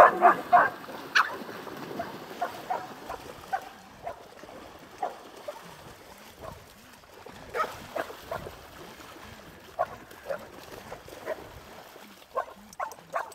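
A pack of excited dogs barking and yipping as they rush into a dam and swim, with some splashing. The calls are densest and loudest in the first second, then come as scattered single barks.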